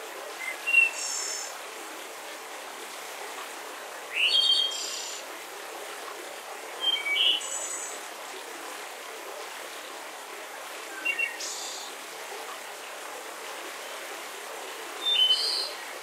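Songbirds singing five short, high, chirping phrases a few seconds apart over the steady rush of a waterfall.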